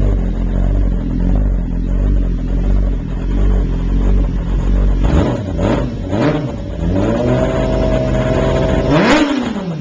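2005 Yamaha R6's inline-four engine running loud through a Viper slip-on exhaust: idling, then two quick throttle blips, a higher rev held for about two seconds, and a last sharp blip that drops back to idle near the end.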